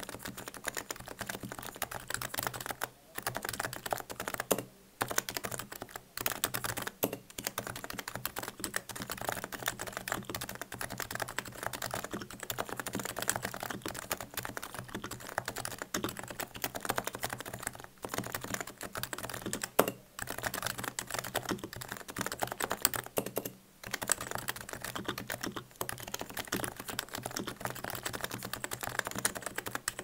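Continuous typing on a Topre Realforce R3 45 g silent electrostatic capacitive keyboard: a dense stream of keystrokes with a few short pauses.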